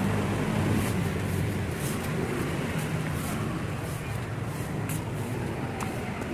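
Steady low rumble of outdoor background noise, like road traffic, with a few faint clicks.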